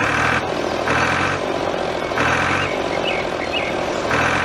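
Mini tractor's engine sound running steadily, swelling and easing in a regular pulse about every one and a half seconds.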